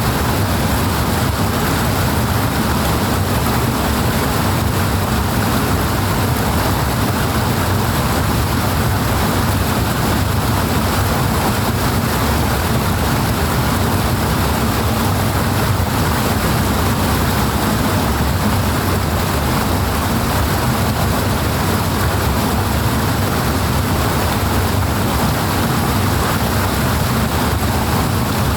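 Powerful flowing water rushing steadily and evenly, with no breaks or changes.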